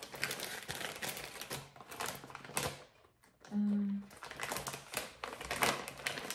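Plastic breast milk storage bag and its packet being handled: quick crinkles and clicks. Near silence falls about three seconds in, then comes a brief hummed 'mm' from a voice, the loudest sound.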